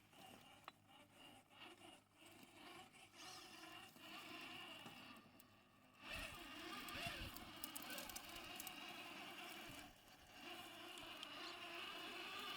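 Faint running of the Rlaarlo JK07PRO 1/7 RC trail truck's electric motor and drivetrain, with tyres scraping over rock; it gets louder about six seconds in.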